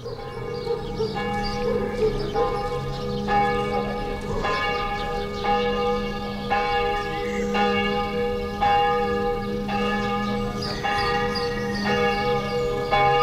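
Church bells pealing from the tower, several bells ringing together with overlapping strikes about once a second. The ringing starts suddenly at the beginning.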